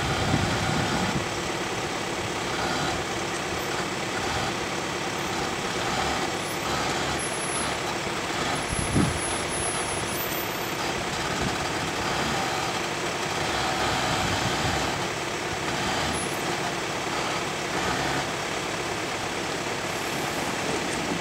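Volkswagen Amarok's engine running at low revs as the ute creeps slowly nose-down into a steep, deep rut, with a brief low thump about nine seconds in.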